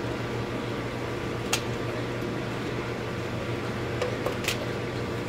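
Steady low machine hum in the room, with a few light clicks of pipe fittings being handled, two sharper ones about a second and a half in and near the end.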